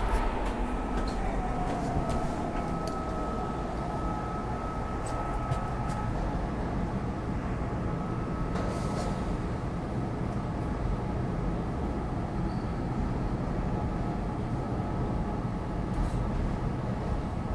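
Market–Frankford Line train car running on the track as it comes into a station, heard from inside the car. There is a steady rumble, a motor whine that falls in pitch during the first two seconds as the train slows, a thin steady high whine, and a few sharp clicks.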